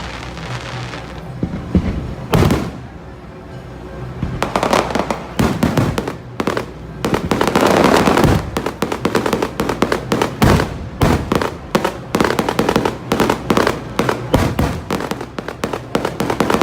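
Fireworks display: a few separate shell bursts, then from about four and a half seconds in a dense barrage of rapid cracks and bangs.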